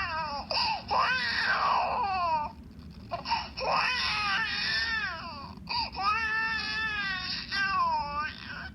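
Infant crying: a string of wailing cries that rise and fall in pitch, with short breaks about two and a half and five and a half seconds in.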